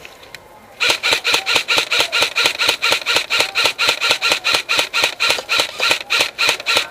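Airsoft high-capacity magazine being wound by its thumb wheel: a steady ratcheting rasp of about six strokes a second, starting about a second in.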